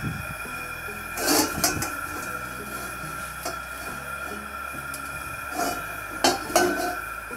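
Helen Chen 12-inch carbon steel wok scraping and clanking against the burner's metal support ring as it is shifted by the handle, in two bouts: about a second in and again near the end.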